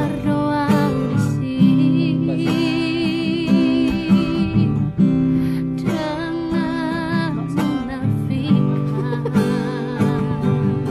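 A woman singing a Batak pop ballad with vibrato on long held notes, over strummed guitar accompaniment.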